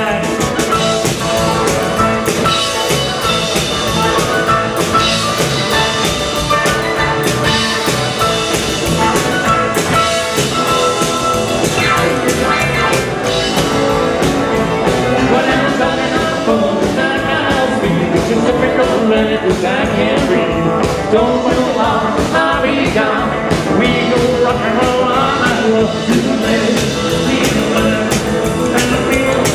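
Live rock and roll band playing: electric guitar, drums, upright double bass and keyboard, with a steady driving beat.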